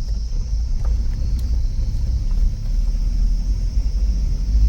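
Suzuki Jimny driving on a rough dirt track: a steady low rumble of engine and tyres, with a constant high hiss above it.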